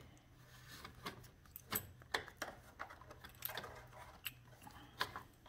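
Faint, irregular clicks and light taps of a plastic electronic control module being handled and slid into the slots of its plastic mounting plate, with a screwdriver in the same hand.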